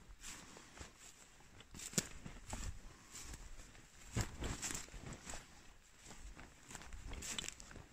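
Footsteps of a person walking over dry lichen- and moss-covered forest ground, a string of soft crunching steps at a walking pace, the firmest about two and four seconds in.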